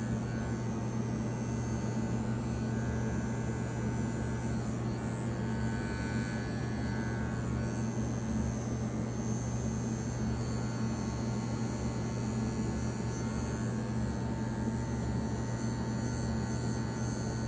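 Wahl Bravura 5-in-1 dog clipper, blade on its longest #9 setting, running with a steady hum as it shaves the hair on top of a dog's ear.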